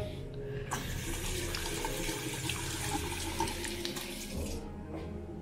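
Handle-less sensor faucet running water into a stainless-steel sink, starting about a second in and shutting off near the end.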